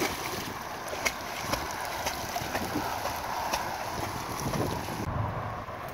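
A dog splashing into choppy water and swimming away, with wind rumbling on the microphone.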